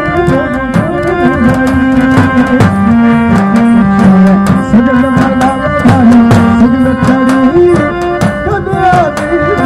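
Rajasthani folk music: fast, steady drumming on a dhol, a two-headed barrel drum, under a sliding melody that never pauses.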